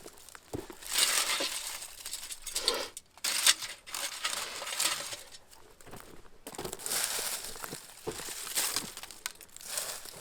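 Dry leaf litter and twigs crunching and rustling in irregular bursts.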